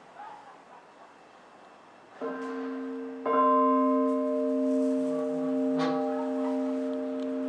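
Church bell struck by hand-swinging its clapper: a light strike about two seconds in, then a harder one a second later, after which the bell rings on with a steady hum of several tones. A faint knock sounds a little later over the ringing.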